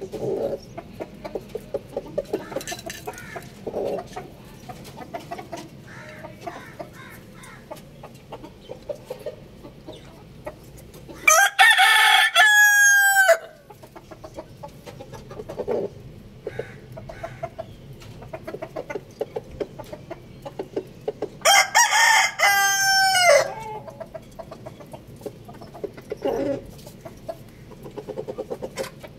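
Roosters crowing: two long, loud crows about ten seconds apart, each ending in a falling note. Softer clucking and short calls from the flock run through the gaps.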